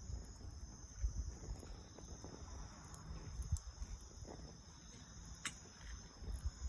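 Crickets chirring in a steady, high continuous chorus, with a few sharp crackles and low rumbles underneath.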